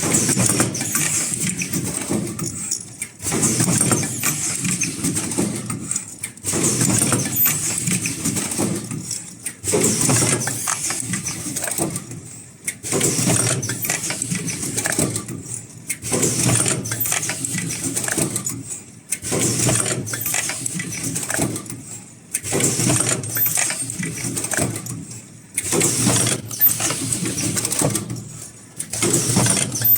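Automatic cup-shaped mask headband welding machine running through repeated work cycles. The noise rises and falls in surges about every three seconds.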